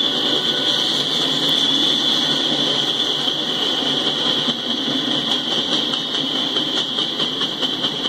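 Freight cars of a Norfolk Southern train rolling past: a steady rumble and a high hiss of steel wheels on rail. From about halfway through comes a regular clicking, about three a second, as the wheels run over rail joints.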